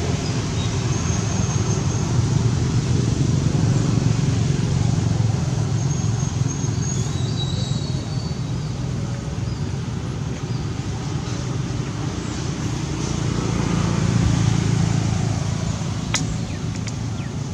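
Steady low rumbling background noise, with a few faint high chirps and a sharp click near the end.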